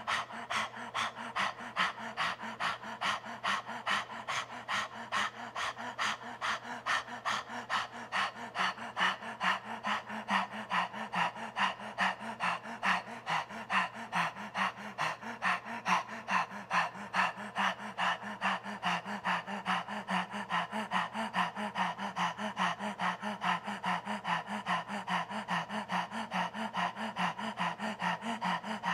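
A man panting rapidly in and out through the open mouth with the tongue stuck out, in an even, unbroken rhythm: the Kundalini yoga Dog Breath pranayama.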